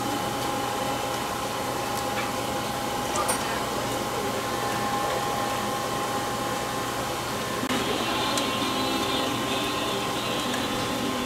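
A knife slicing roast duck on a wooden chopping board, with a few faint taps, over a steady machine-like hum. The background noise thickens about eight seconds in.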